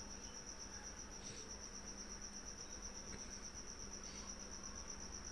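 Faint background with a steady, high-pitched pulsing trill like an insect's, running without a break, over a faint low hum.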